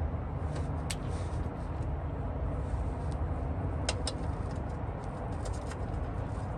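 Steady low outdoor rumble with a few light, sharp clicks and knocks, about a second in and twice near four seconds in.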